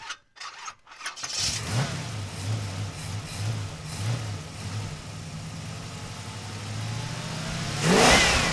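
A car engine starts up about a second in and idles with an uneven pulse, then revs once near the end.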